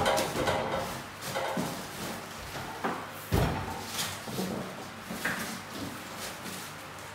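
Unboxing: plastic wrapping rustling and a cardboard box being handled, with several knocks as a heavy cut-off saw is lifted out. The loudest is a heavy thump about three and a half seconds in.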